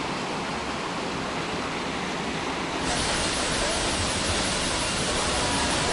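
Steady rush of a flowing forest stream. About halfway through, a high insect chorus starts up and rises over it.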